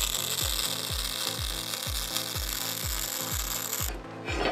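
MIG welder arc crackling steadily as it lays a bead on steel brackets, stopping abruptly near the end. Under it runs background music with a steady kick-drum beat, about two beats a second.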